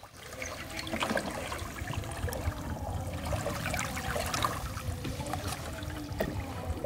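Water splashing and trickling as a wading fisherman pushes a small hand net on a stick through shallow creek water along a wall net, scooping for small prawns. The splashes come irregularly and fast.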